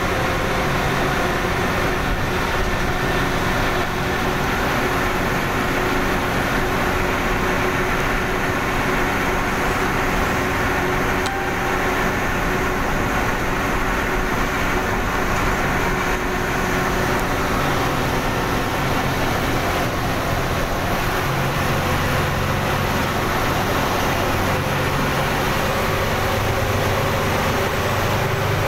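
Bus engine and road noise heard from inside the driver's cab while cruising, a steady drone with a low engine hum.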